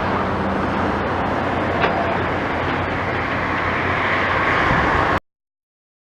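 Steady engine noise with a low hum, and a single sharp click just under two seconds in; the sound cuts off abruptly about five seconds in.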